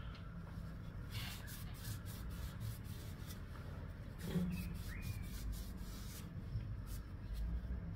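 Hand rubbing oil along the steel blade of an old Turkish Mauser bayonet, a soft irregular rubbing with a brief bump about four seconds in. The oil is being worked in to lift what is taken to be very old, sticky cosmoline.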